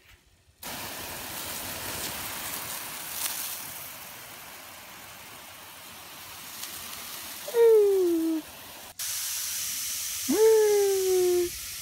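Steady hiss of spraying water, with a Bengal cat meowing twice over it: a short meow falling in pitch, then a longer one about ten seconds in that rises and then holds.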